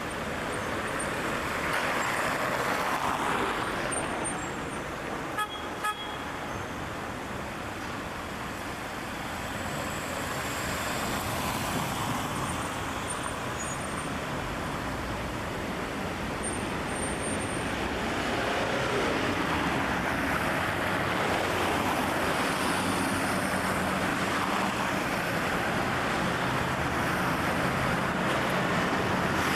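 Busy city street traffic, cars and buses passing in a steady wash of engine and tyre noise. Two short horn toots come about five and a half seconds in, and a steady low engine hum grows louder near the end.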